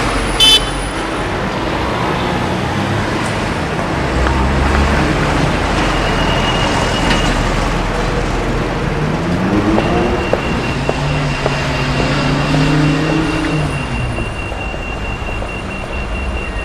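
Dense road traffic: the steady noise of cars and heavier vehicles, with engines rising and falling in pitch as they pull away and pass. A thin high whine runs through the second half, and there is a brief high chirp about half a second in.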